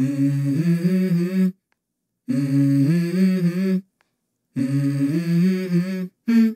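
A voice humming the same short, slightly rising phrase three times, each about a second and a half long with silences between, and a brief fourth note near the end.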